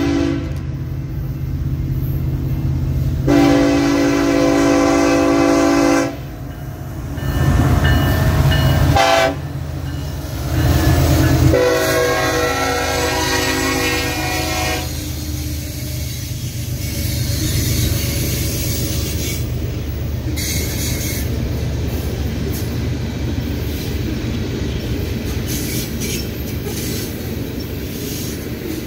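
Air horn of a BNSF SD70ACe-led coal train sounding a series of long blasts with a short one between, over the low rumble of the diesel locomotives passing close by. From about halfway on, the coal hopper cars roll past with a steady rumble and clatter of wheels on the rails.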